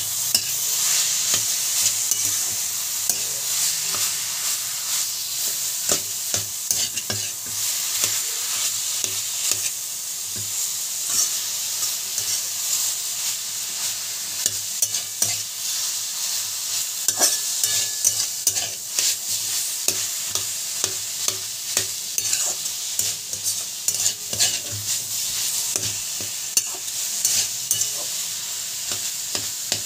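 A spatula stirring and scraping a mash of fried banana flower, boiled potato and peas around a hot metal wok, with frequent clicks of the spatula against the pan over a steady sizzle of frying oil.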